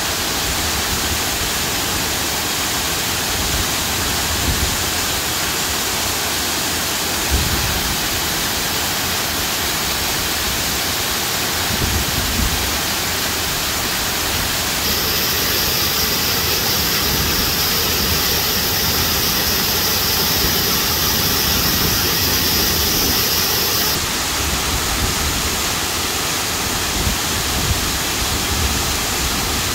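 Waterfall rushing in a steady, loud hiss of falling water, with occasional low thuds. About halfway through, a higher steady whine joins for roughly ten seconds.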